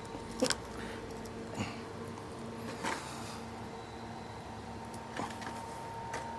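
Steady low hum with a few light, scattered clicks and knocks of handling.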